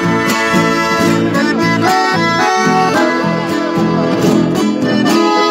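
Piano accordion and acoustic guitar playing chamamé together: the accordion carries the melody over the guitar's steady rhythmic accompaniment.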